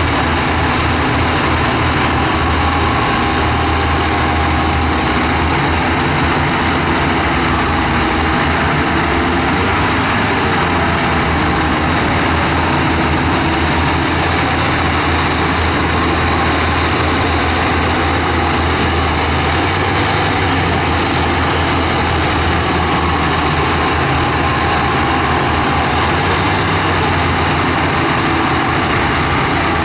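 Heavy earthmoving machine's diesel engine running steadily, a loud low rumble with a constant mechanical clatter and no clear changes in pitch.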